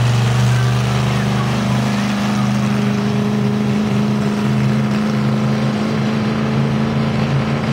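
Monster truck engine running at steady speed as the truck drives along the track, a loud, deep, even drone.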